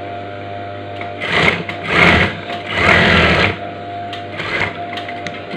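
Industrial sewing machine stitching fabric in four short runs, the longest about three seconds in and the last one faint.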